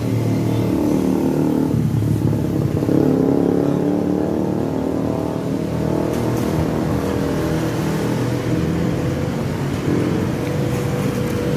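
Motor vehicle engines running close by, their pitch rising and falling as traffic goes past.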